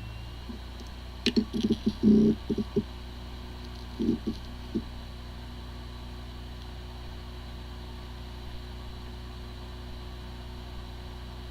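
Hard drive spinning with a steady hum, with a cluster of short knocks about a second in and a few more around four seconds in. It sounds like a healthy drive, but the drive has corrupted disk firmware and the computer cannot detect it.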